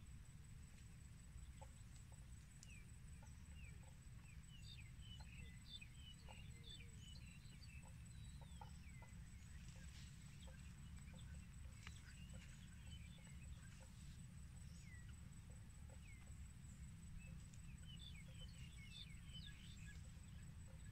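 Faint birds chirping and calling in short, quick notes, in clusters, over a steady low rumble.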